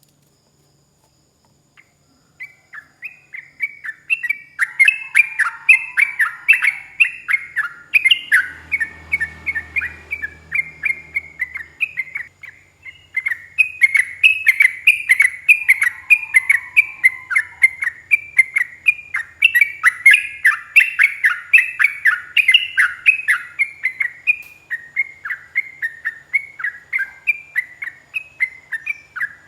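Yellow-vented bulbul (trucukan) singing a long, unbroken run of short, rapid whistled notes. The song starts about two seconds in and carries on without a break.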